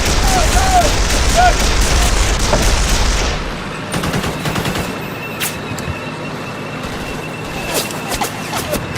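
Heavy small-arms gunfire, many weapons firing rapidly at once, easing about three seconds in to scattered single shots and short bursts. A faint steady high tone runs through the second half.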